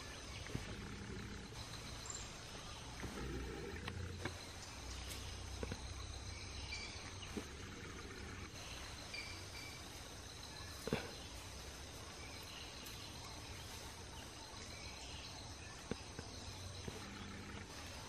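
Forest ambience: a steady low hiss and rumble with scattered short, high chirps, and a single sharp snap about eleven seconds in.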